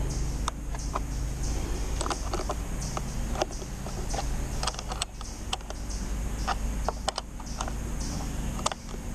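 Irregular small clicks and clinks of hand work on metal parts, over a steady low rumble.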